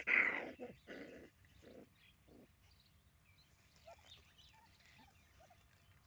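Young puppies yelping as they tussle, loudest in the first half second, then a few short, softer yelps and faint chirps.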